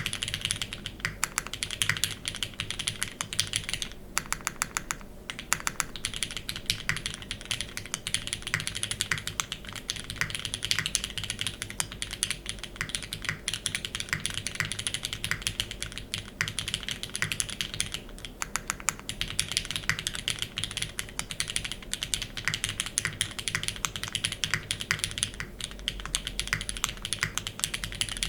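Fast, continuous typing on a gasket-mounted Keycult No. 2/65 keyboard with lubed, filmed retooled Cherry MX Black linear switches on an aluminium plate and GMK keycaps: a dense run of keystroke clacks with a short pause about four seconds in.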